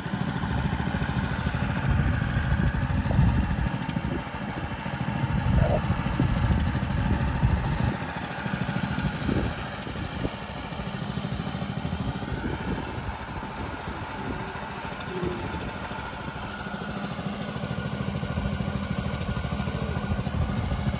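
Small engine running steadily, driving a water pump that draws water out of the pond.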